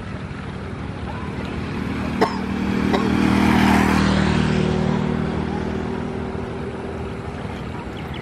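Garuda Indonesia Boeing 737-800's jet engines passing by, the rumble and hiss swelling to a peak about three and a half seconds in and then slowly fading. A sharp click comes about two seconds in.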